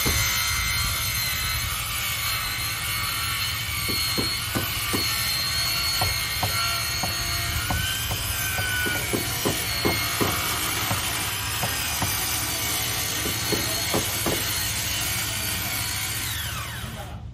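A power tool runs with a steady whine, and irregular knocks of hammer blows on the wooden boat hull sound over it. Everything cuts off suddenly near the end.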